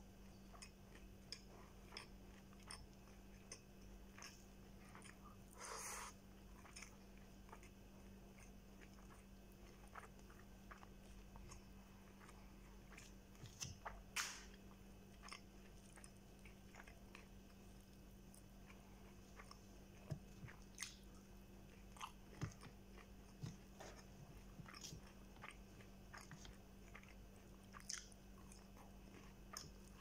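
Faint close-up eating sounds of a man eating rice and fried chicken by hand: scattered chewing and mouth clicks, with a brief louder rustle about six seconds in and a sharp click near fourteen seconds. A steady low hum runs underneath.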